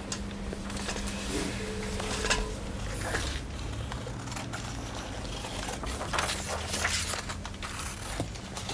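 Office room tone: a steady low hum with faint scattered clicks and rustles.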